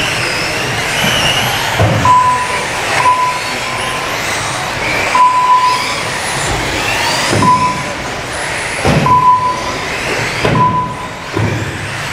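Several radio-controlled off-road race cars running together, their motors whining up and down in pitch as they accelerate and brake. Short beeps at one steady pitch sound about six times, typical of a lap-timing system counting cars over the line. There are occasional dull thuds from cars landing or hitting the track.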